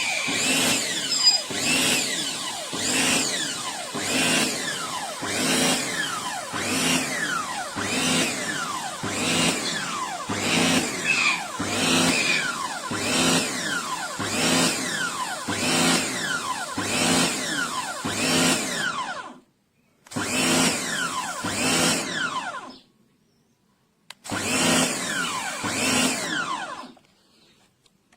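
Electric pressure washer motor and pump running, surging about once a second. It cuts out and restarts a few times near the end, as the trigger is released and pressed again.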